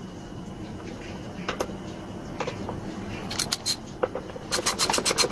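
A few light clicks and taps of a tool on the blower's plastic fan hub, then, from about four and a half seconds in, a ratchet clicking rapidly and evenly, about eight clicks a second, as the fan's bolts are driven in. The footage is sped up three times, which quickens the clicking.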